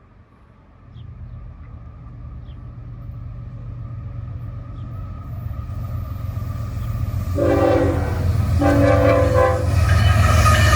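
Approaching CSX freight train led by a GE ES44AH diesel locomotive: its rumble builds steadily, then the locomotive's horn sounds two long chord blasts about seven and a half and eight and a half seconds in, followed by loud rising noise as the train arrives.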